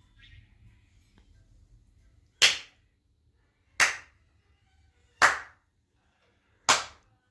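Four single hand claps by a child, sharp and loud, evenly spaced about a second and a half apart.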